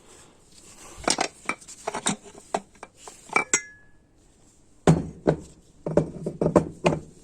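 Metal transmission parts clinking and knocking together as they are handled and fitted during an automatic transmission rebuild. It comes in two clusters of sharp clinks, and one part rings briefly in the middle.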